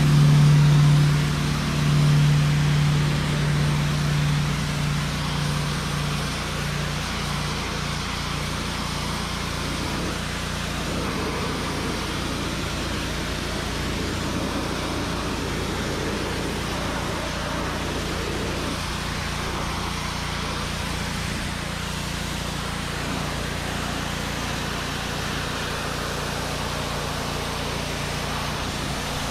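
Gas pressure washer with a Honda GX200 single-cylinder engine running steadily, with the water jet hissing against a tractor tyre and wheel rim. It is louder at first and settles to an even level after about six seconds.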